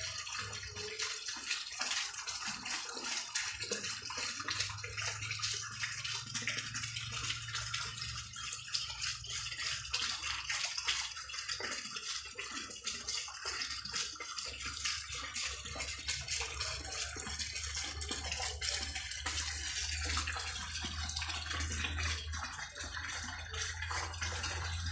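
Dense night chorus of crickets and cicadas: a continuous high, shrill, rapidly pulsing drone, with a low steady hum underneath that grows stronger in the last few seconds.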